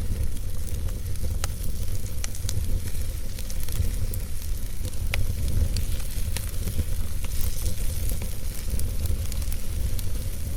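Wood fire burning in a fireplace: a steady low rumble of flames with a hiss, and frequent sharp crackles and pops from the burning logs, a few louder ones standing out.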